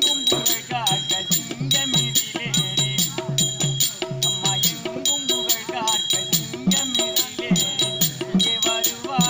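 Tamil therukoothu folk ensemble playing: barrel drums beat a steady rhythm under a bending melody line, with metallic jingling strokes marking the beat at regular intervals.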